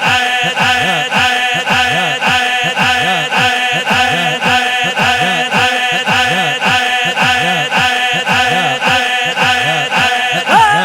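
Rhythmic devotional chanting by male voices, one short phrase repeated about twice a second over a steady held drone tone.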